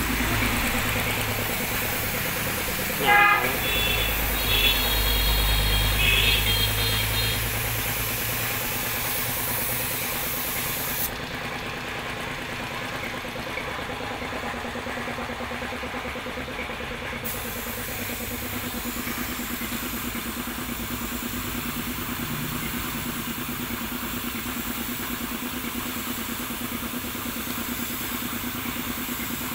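Compressed-air paint spray gun hissing as it sprays, over the steady drone of an air compressor running. The hiss stops for about six seconds in the middle, then resumes; a brief loud knock comes about three seconds in.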